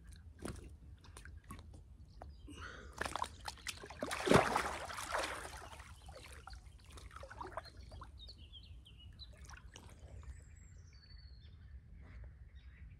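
Shallow water sloshing and dripping as a large carp is released by hand from its sling, with one louder splash about four seconds in.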